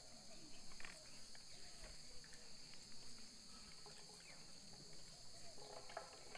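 Insects chirring in a steady, high-pitched chorus, with a few faint light clicks.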